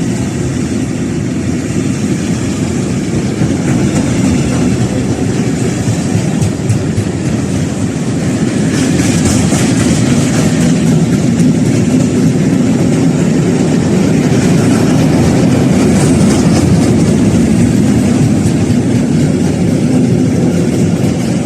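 Freight train rolling past close by, its wagons rumbling and rattling over the rails. A high-pitched squeal rises out of it a few times along the way.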